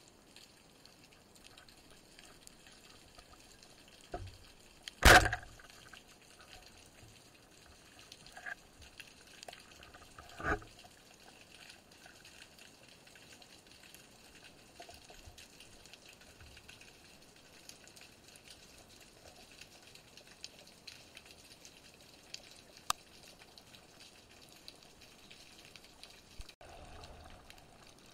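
Underwater ambience from a spearfisher's camera: a steady faint hiss with fine crackling. A sharp, loud knock comes about five seconds in and a softer one about ten seconds in.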